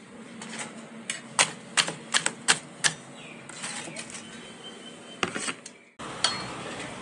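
Knife and metal tongs knocking on a cutting board as fried chicken is handled and cut: a run of sharp, irregular knocks, most of them between about one and three seconds in, with a few more shortly before six seconds.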